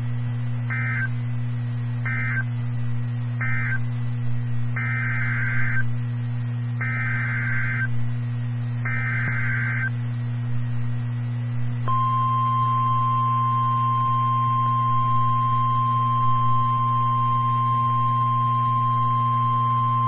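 NOAA Weather Radio Emergency Alert System tones. First come three short buzzy SAME end-of-message data bursts, closing the first special marine warning. Then come three longer SAME header bursts for the second warning, and about 12 s in the single steady 1050 Hz warning alarm tone starts, all over a low steady hum.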